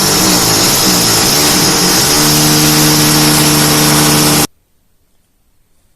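Tractor engine running loudly, its pitch wavering at first and then settling to a steady note about two seconds in. It cuts off abruptly a little after four seconds, leaving near silence.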